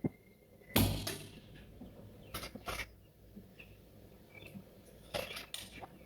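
A pre-charged pneumatic (PCP) air rifle, the Skout Epoch, fires one shot about a second in: a sharp crack, the loudest sound. Several quieter metallic clicks follow, with faint bird chirps in the background.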